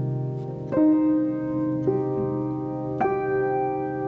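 Background piano music: slow, sustained chords, with a new chord struck about once a second.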